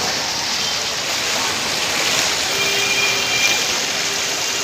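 Steady rushing and splashing of floodwater churned up by a vehicle wading through a flooded street.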